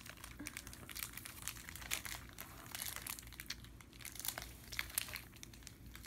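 Clear plastic candy wrapper crinkling in small, irregular crackles.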